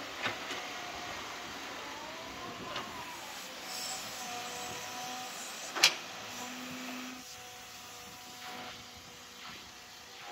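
Caterpillar 312B hydraulic excavator's diesel engine running steadily, with a hydraulic whine that rises and falls as the arm works. Several sharp knocks from the bucket and digging come through; the loudest is a single sharp knock about six seconds in, as the bucket digs into the trench.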